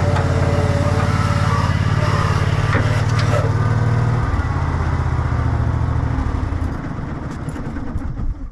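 Gas Bobcat 444 skid steer's swapped-in Briggs & Stratton Vanguard 23 hp V-twin engine running steadily, then slowing and dying away as it is shut off in the last couple of seconds.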